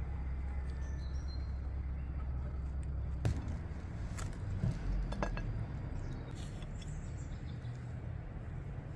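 A low steady rumble, then a few sharp clicks and crackles from crusty bread being torn apart by hand and tableware touching glass plates, from about three seconds in.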